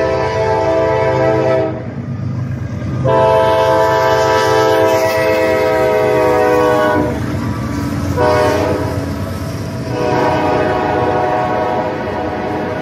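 Norfolk Southern diesel freight locomotive sounding its multi-note air horn in repeated blasts: one ends about two seconds in, a long blast follows, and after a short break the horn sounds again. The engine's low rumble and the wheels on the rails carry on beneath.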